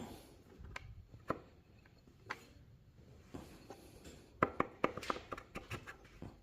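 Light metal clicks and knocks as a Subaru EJ25 AVCS cam sprocket is turned on the camshaft and worked onto its locating pin: a few single ticks, then a quick run of clicks about four seconds in.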